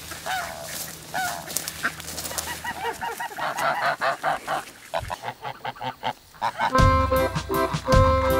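Domestic geese honking, a run of repeated calls that come thick and fast in the middle. Music begins near the end.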